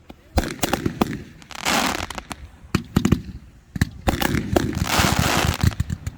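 Fireworks going off: many sharp cracks and pops in quick, irregular succession, with two stretches of hissing crackle, one about two seconds in and a longer one near the end.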